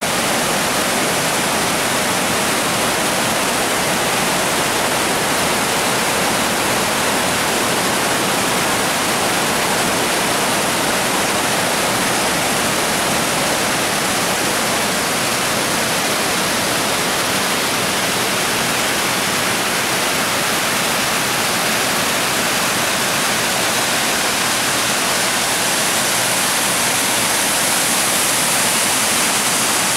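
Creek water rushing steadily over rock ledges and small cascades in a continuous whitewater wash, a little louder and hissier near the end.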